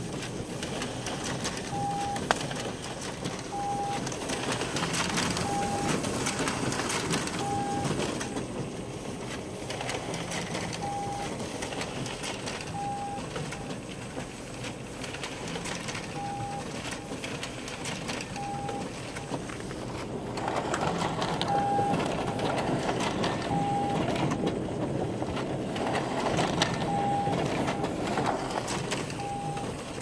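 Sharp MX-M4050 copier's inner finisher sounding a short, steady beep every two seconds or so, twelve times, over the machine's running noise.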